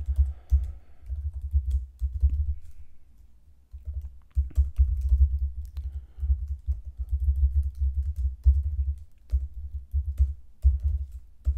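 Typing on a computer keyboard: rapid keystrokes in bursts, with a short pause about three seconds in.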